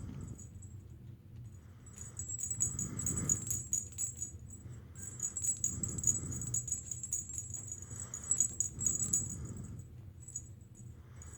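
Small jingle bell jingling in rapid, irregular shakes as a pet cat moves, dying away near the end.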